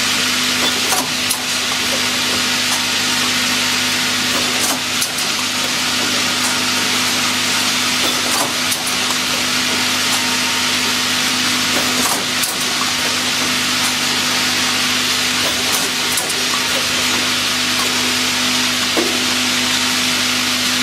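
Automatic air-purge bottle washing, filling and capping line running: a steady hiss of air with a constant motor hum underneath and an occasional sharp clack.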